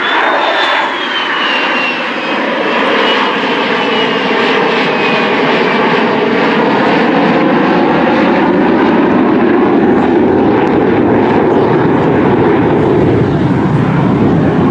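Formation of military aircraft (an F-22 Raptor, an F-35, an A-10 and a P-51 Mustang) passing overhead. A high jet whine falls in pitch over the first several seconds as the formation goes by, then gives way to a loud, steady engine roar.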